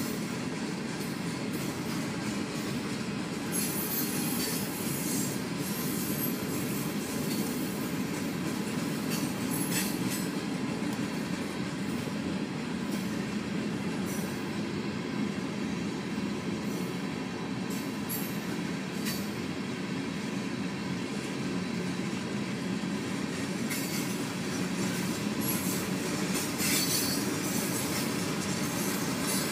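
Freight train cars rolling steadily past: a continuous rumble of steel wheels on rail, with scattered sharp clicks every few seconds.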